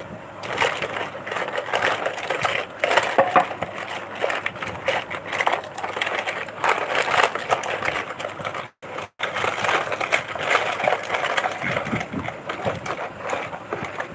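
Plastic toy cars and buses clattering and knocking against each other as hands stir and shift them around a plastic tub: a dense, continuous rattle of small clicks.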